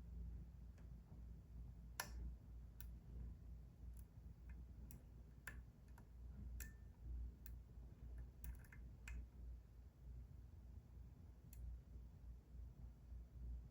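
Faint, irregular small clicks and ticks of picking tools working in a Kwikset SmartKey gen 2 lock, about a dozen scattered through, over a low steady hum.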